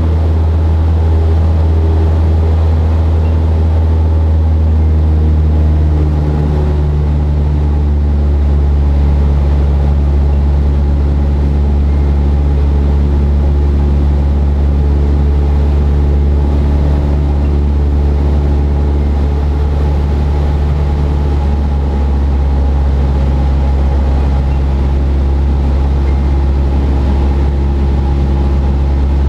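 Cessna 172's piston engine and propeller droning steadily inside the cabin in cruise flight, with a small shift in pitch about six seconds in.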